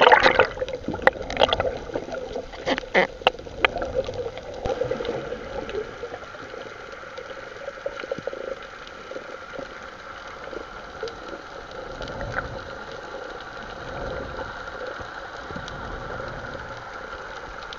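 Water gurgling and sloshing, with a few sharp knocks in the first four seconds, then a steady wash with a faint hum underneath.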